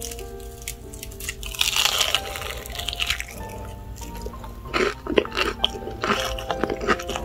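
Crisp, waffle-pressed SPAM crackling and crunching in several spells as it is broken apart, over background music with held notes.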